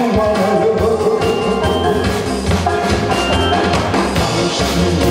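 Song playing from a backing track through a stage PA: a steady drum and bass beat with a melody over it.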